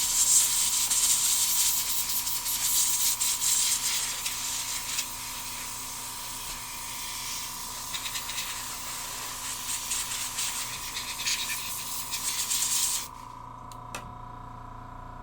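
Flux cleaner spraying onto a circuit board in a loud, fluttering hiss that stops suddenly about thirteen seconds in, followed by a couple of small clicks.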